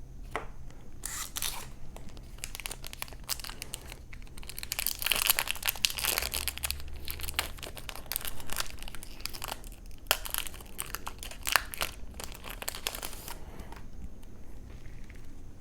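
Foil trading-card booster pack wrapper being torn open and crinkled, with dense crackling that is busiest through the middle of the stretch.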